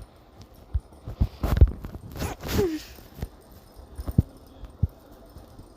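Repeated hiccups: several short, sharp hics spaced roughly half a second to a second apart, one of them with a brief falling squeak of voice about two and a half seconds in.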